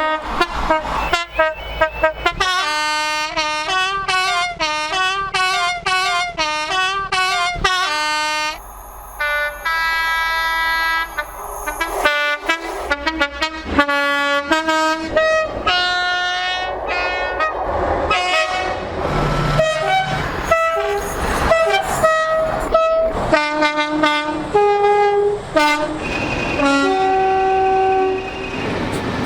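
British train horns and whistles sounding one after another in many short clips. Most are quick two-tone blasts stepping between a high and a low note, and a few longer notes are held for a second or more.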